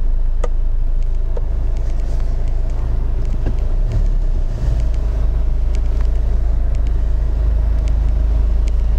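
A car being driven, heard from inside the cabin: a steady low engine and road rumble with a few light ticks, and a brief change in the rumble about four and a half seconds in.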